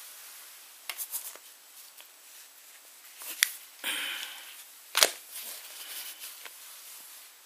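Silicone swim cap being handled and turned over on a fabric bag: rubbing and rustling with several sharp clicks and snaps, the loudest about five seconds in.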